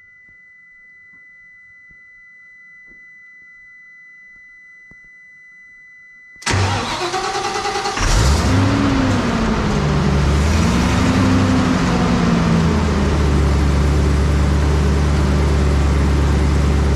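Ford engine of a Bandit wood chipper starting. A faint steady high whine is heard with the key on. About six seconds in, the starter cranks for a second or so, then the engine catches, revs up and down a few times, and settles into a steady idle. This is the first start after fresh oil and a new filter.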